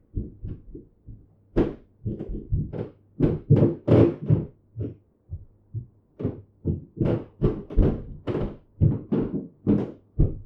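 Heavy running footsteps thudding on a floor: a rapid, uneven series of dull thumps, about three to four a second, with a couple of short lulls.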